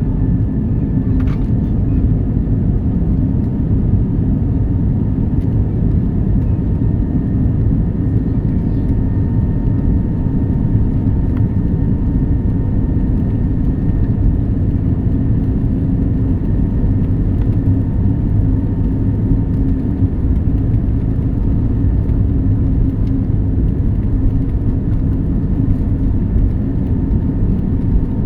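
Boeing jet airliner taking off: a steady, loud, deep rumble of the jet engines and rushing air, with a faint steady hum above it.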